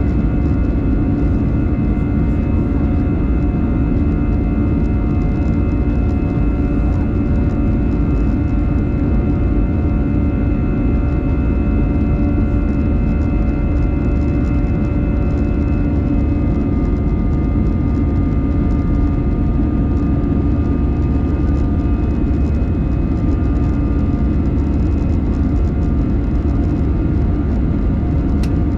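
Cabin noise of an Airbus A319 in its climb after takeoff: a steady low roar of the jet engines and airflow, with a constant whine of engine tones above it. The tones shift slightly in pitch about halfway through.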